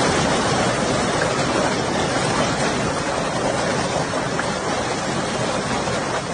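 Hail and heavy rain pelting down in a strong wind, a steady dense rush of noise.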